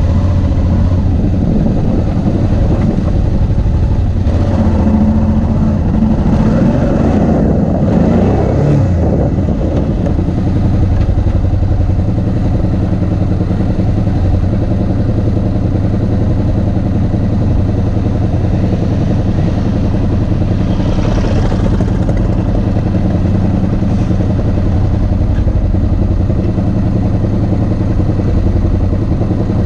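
Motorcycle engine idling steadily close by, with other off-road motorcycles riding past about four to nine seconds in.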